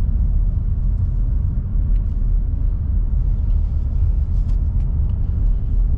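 Steady low road and engine rumble of a car being driven, with a few faint ticks.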